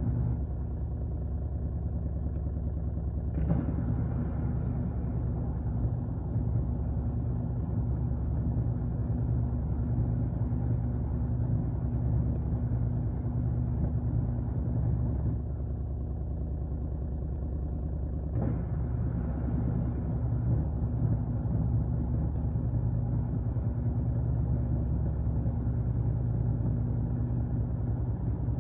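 Washing machine running with a steady low hum. A short click comes about three seconds in and again about eighteen seconds in, and the running grows louder after each.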